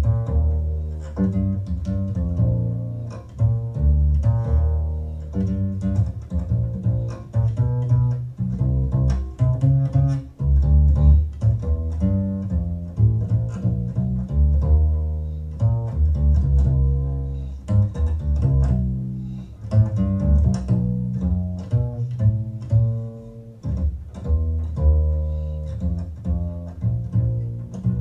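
Instrumental break of a slow jazz ballad played back through hi-fi loudspeakers and picked up by room microphones. A plucked double bass carries strong, steady notes, with lighter instruments above it.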